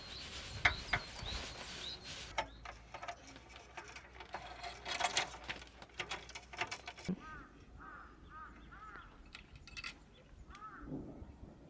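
Light clinking and clattering of small hard objects being handled. About seven seconds in come a quick series of five short chirping calls, and one more shortly after.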